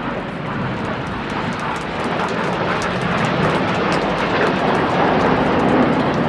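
A formation of BAE Hawk T1 jet trainers flying past, their jet engine noise a dense rush that grows steadily louder.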